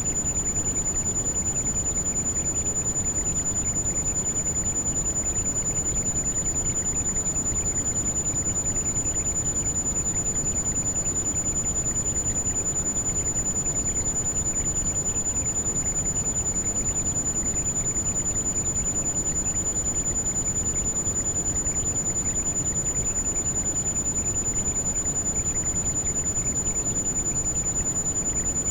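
Heavy rain as a steady, even rushing with no breaks, and a continuous, very high-pitched pure tone held through it, the tinnitus tone of a tinnitus-masking recording.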